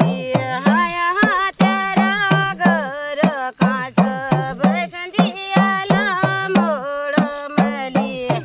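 Pahari (Kumaoni) folk song: a singing voice with ornamented, wavering pitch over a steady hand-drum beat of about two strokes a second.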